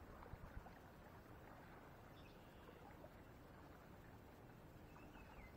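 Near silence: faint outdoor background noise, with a few faint high chirps about two seconds in and again near the end.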